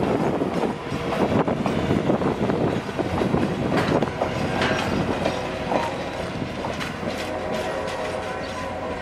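Passenger train cars rolling past, their wheels clicking over rail joints in an uneven run of knocks over a rumble of rolling noise. The sound eases off in the second half as the last car passes and the train moves away, and faint thin steady tones come in.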